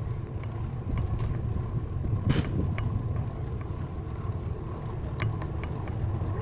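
Wind buffeting the microphone of a camera carried on a moving bicycle, a steady low rumble with faint ticks, and a brief hiss about two and a half seconds in.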